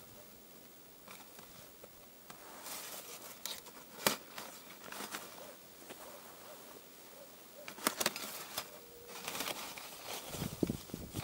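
Thin aluminium windshield panels being folded and unfolded by hand: scattered light metallic clicks and rattles, the sharpest about four seconds in and again near eight seconds.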